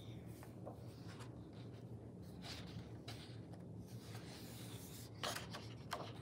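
Pages of a hardcover picture book handled and turned by hand: faint paper rubbing and sliding, with two sharper page flips near the end, over a low steady room hum.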